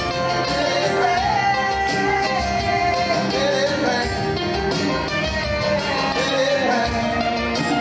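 Live acoustic band playing: two acoustic guitars strummed, a djembe played by hand, and a man singing the lead melody.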